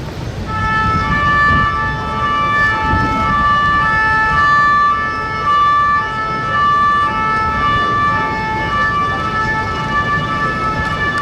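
French two-tone emergency vehicle siren, the 'pin-pon', alternating steadily between two pitches. It sounds over low background noise.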